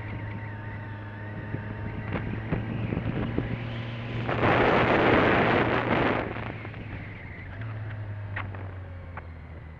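Motorcycle engine running steadily while riding. About four seconds in, a loud rush of wind noise on the microphone lasts about two seconds and drowns out the engine.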